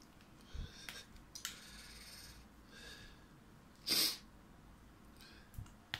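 Mostly quiet, with a couple of faint small ticks, and about four seconds in one short, sharp burst of breath noise from a person, such as a sniff or sneeze.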